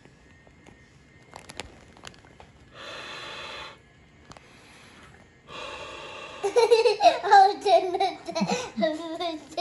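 Steady airy noise comes on for about a second, then starts again a few seconds later. Near the end a loud, wavering voice sounds over it without clear words.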